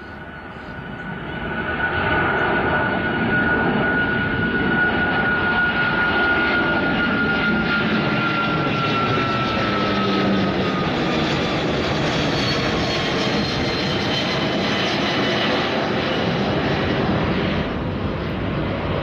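Twin Rolls-Royce Trent 800 turbofans of a Boeing 777-200ER roaring at climb power as the airliner passes overhead after takeoff. The noise swells over the first two seconds and then holds loud, with a high whine that slowly falls in pitch as the jet passes, easing slightly near the end.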